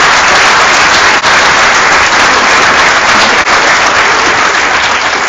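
Audience applauding loudly, starting to die down near the end.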